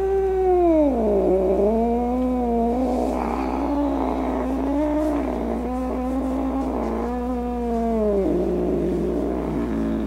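A grumpy cat's long, low, drawn-out yowl. It drops in pitch within the first second, holds a wavering low moan for about seven seconds, then falls away near the end.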